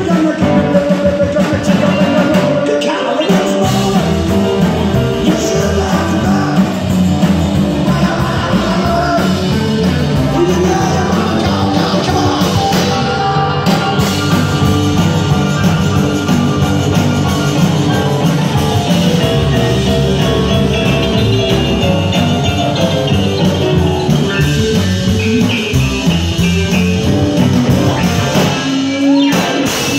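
Live rock and roll band playing in a rockabilly style: upright double bass, piano, electric and acoustic guitars and drums, with a lead vocal at times. The music runs loud and unbroken.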